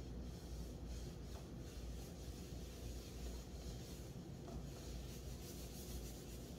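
Faint rubbing of an oil-soaked cloth rag over a hardwood clipboard panel, working in a finishing oil, over a low steady hum.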